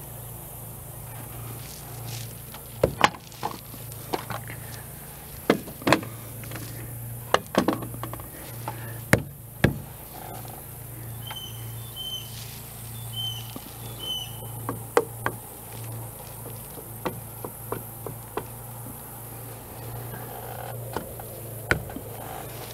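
Scattered sharp knocks and taps of a wooden knee brace being handled and fitted into a timber frame, irregular and a second or so apart, over a steady low hum.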